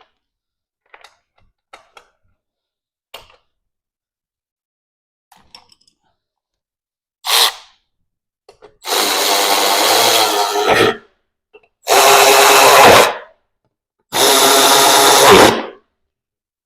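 Faint clicks of parts being handled, then a power drill or driver run in one short burst and three trigger pulls of about one and a half to two seconds each, each stopping sharply, as parts are fastened back onto the mower.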